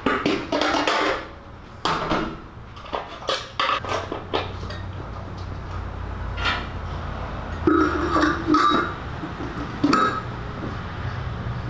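Metal clanks and clinks of a chrome air cleaner lid being lifted off and set back down on its steel housing: a run of knocks in the first two seconds, a few scattered ones after, and another run about two-thirds through, over a low steady hum.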